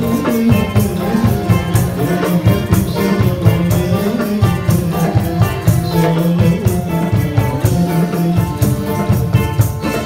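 Malay ghazal ensemble playing live: accordion and gambus carrying the melody over a steady tambourine and hand-drum rhythm.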